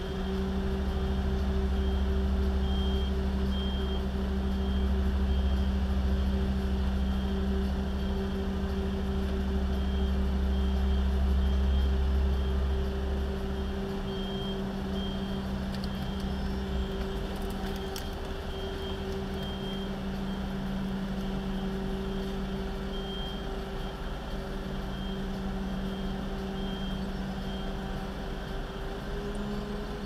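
Heavy truck engines running steadily, with a deep rumble that eases off about halfway through. A faint truck backup alarm beeps about twice a second in short runs.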